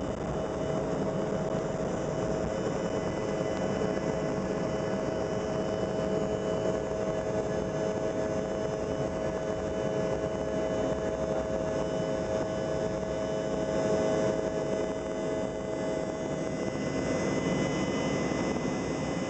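Jet airliner's engines at takeoff power, heard inside the passenger cabin: a steady roar with a few steady whining tones as the plane finishes its takeoff roll, lifts off and climbs.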